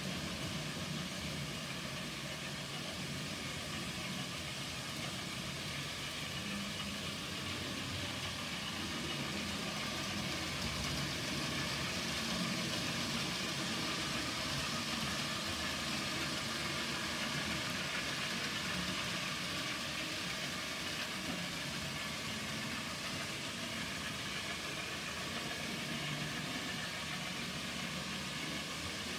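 N gauge model trains running round the layout: a steady whirr and rumble of small locomotive motors and wheels on the track, swelling slightly midway.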